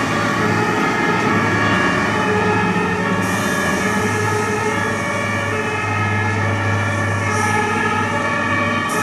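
Several emergency-vehicle sirens sounding together, the German two-tone horns of a fire brigade turnout, over the steady low drone of the trucks' engines.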